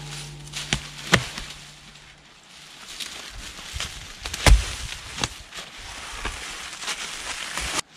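Heavy wooden knocks and thumps as a cut section of a dead log is dragged, stood on end and tipped over onto leaf litter. The loudest thump comes about halfway through. A low steady hum dies away about two seconds in.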